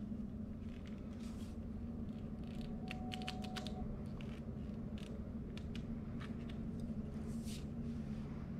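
Faint, scattered metallic clicks and taps of a small wrench tightening a nut on a bolt through a perforated steel strap, with the metal parts knocking lightly as they are handled.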